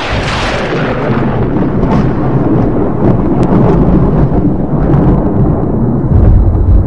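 Thunderstorm: heavy rain with thunder rolling and rumbling, the low rumble swelling near the end.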